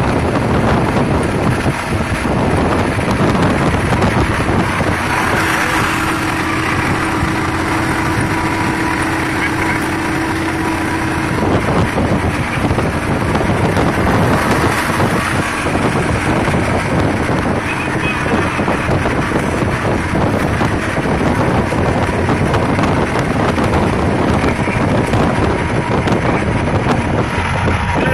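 Steady road, engine and wind noise inside a moving truck's cab, with a steady tone for several seconds about five seconds in.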